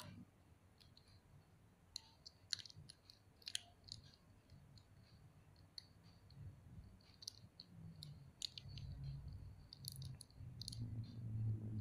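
Faint, scattered small clicks of an action figure's armour pieces being handled and snapped into place, as the helmet is fitted back onto the figure. A low rumble of handling rises near the end.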